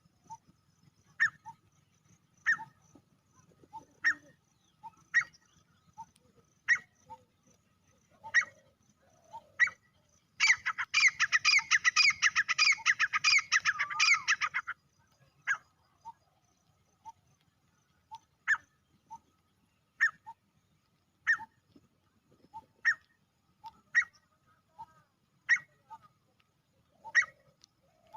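Male grey francolin calling: short, sharp single notes about every second and a half, broken in the middle by four seconds of loud, fast, unbroken calling.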